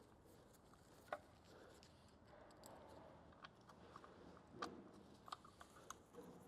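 Near silence, broken by a few faint, sharp clicks and taps of small chainsaw parts and tools being handled, the clearest about a second in and another midway.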